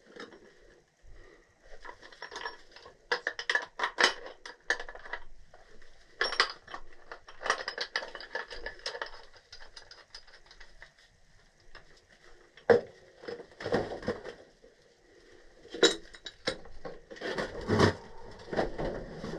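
Metal hand tools and furnace parts clinking, tapping and scraping against each other in irregular bursts during work on a furnace's gas valve.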